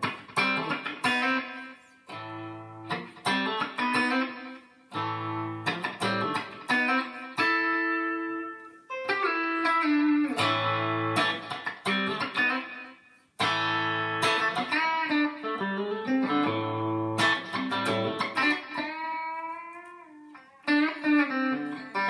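Electric guitar, a Stratocaster-style guitar with Radioshop '63 single-coil pickups, played clean through a Line 6 Helix Fender Deluxe Reverb amp model with a very low-gain Klon effect, light compression and delay. Picked chords and single-note phrases come in short bursts with brief gaps, with a few string bends in the later phrases.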